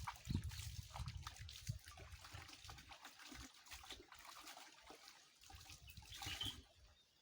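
Shallow stream water trickling and splashing as clothes are washed in it by hand. Faint, with a brief louder splash about six seconds in.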